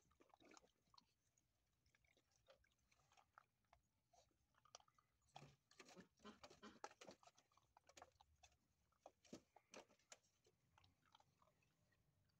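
Faint chewing and crunching of XL American Bully puppies eating dog food together: many small, quick crunches and smacks, thickest in the middle.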